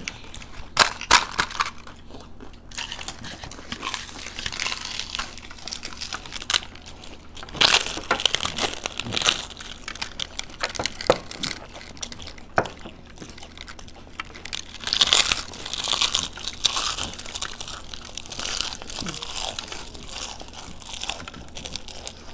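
Several people eating giant panipuri (fuchka): the crisp, hollow puri shells crack and crunch as they are bitten and chewed, in irregular bursts, busiest about a third of the way in and again past the middle.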